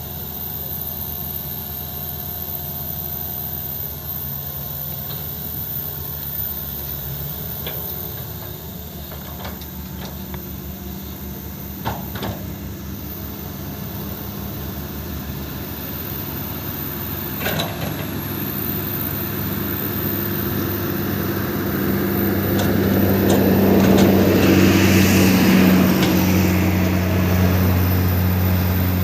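Excavator's diesel engine running steadily, with a couple of sharp knocks midway. Near the end it grows louder, with a rush of noise over the engine note.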